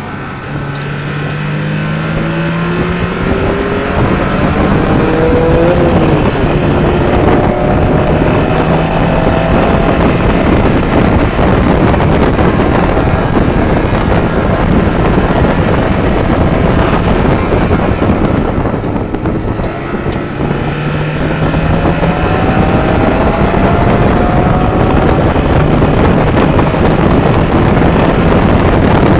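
1992 Mazda Miata's 1.6-litre B6 four-cylinder engine pulling under load over heavy road and wind noise, its pitch rising twice, with a short dip in level about two-thirds of the way through. The engine has a rod knock.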